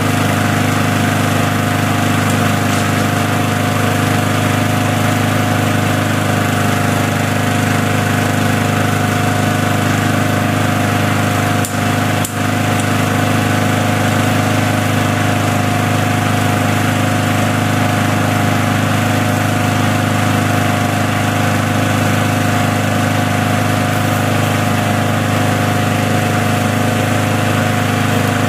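Small lawn mower engine running steadily at one speed and not shutting off, its kill switch having failed. The sound dips briefly twice near the middle.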